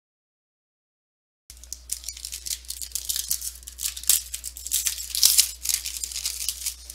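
Foil trading card pack wrapper crinkling and tearing as it is opened by hand: a dense, loud crackle of many small clicks. The sound is completely cut out for about the first second and a half.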